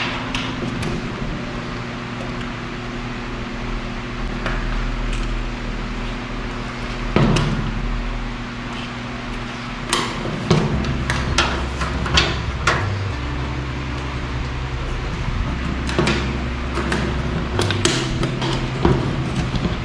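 Scattered sharp knocks and taps of wooden furniture parts being hammered and handled during assembly, coming irregularly and mostly in the second half.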